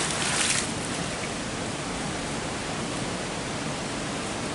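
A magnet on a rope splashing into canal water, the splash dying away within the first half second. Then a steady rush of water from a weir.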